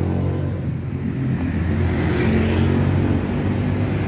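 An engine running steadily, with a slight wavering in pitch.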